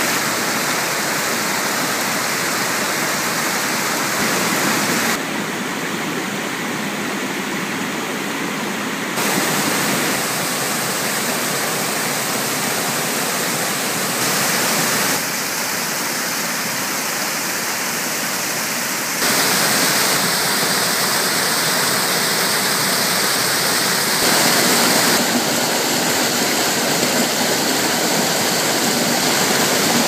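Waterfall water rushing and splashing over rocks and a stepped stone weir: a steady rushing noise that shifts abruptly in loudness and tone several times, about every four to six seconds.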